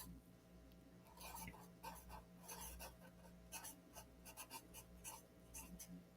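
Faint, irregular scratching and rustling, a series of short scrapes over a low steady hum.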